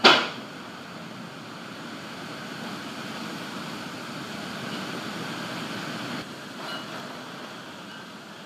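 A sharp, loud thunderclap from a close lightning strike that dies away within about half a second, then a steady wash of storm noise from rain and wind.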